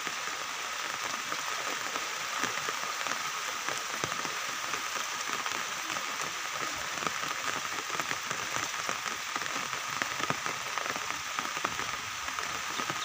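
Steady rain falling: a dense, even hiss with many scattered small drop ticks.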